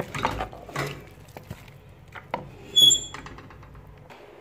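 Cooking spoon stirring thick vegetable soup in a pot: soft wet scrapes and knocks, then a sharp metallic clink with a brief ring about three seconds in, the loudest sound.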